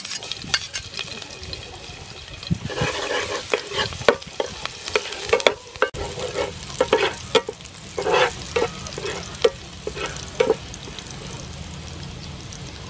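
Chopped garlic sizzling in hot soybean oil in a non-stick frying pan, with a metal spatula scraping and tapping against the pan as it is stirred. The strokes stop a couple of seconds before the end, leaving a steady sizzle.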